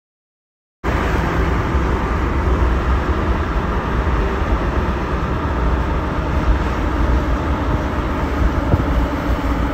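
Steady road and wind noise of a car driving at highway speed, heard from inside the car; it starts abruptly about a second in after silence.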